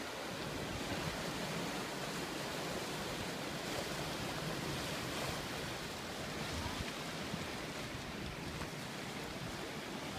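Ocean surf washing and breaking against shoreline rocks: a steady rush of water with no distinct single crashes.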